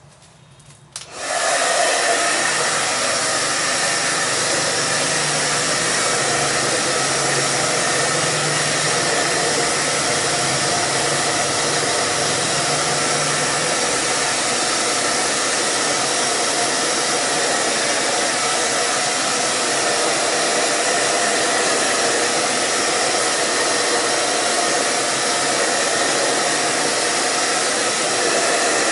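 Handheld hair dryer switched on about a second in and running steadily, blowing on hair that has been styled with wax while wet.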